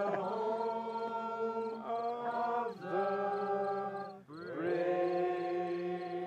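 Several voices singing or chanting together in long held notes, three drawn-out notes with short breaks between them.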